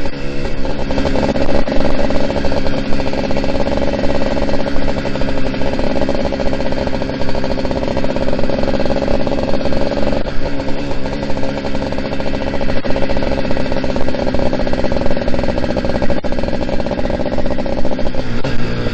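Two-stroke dirt bike engine running while being ridden, its pitch shifting up and down with the throttle, notably around the middle.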